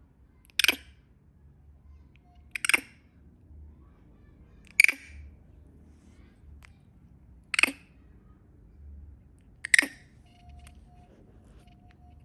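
A frightened monkey giving short, shrill 'kriik' shrieks, five of them about two seconds apart.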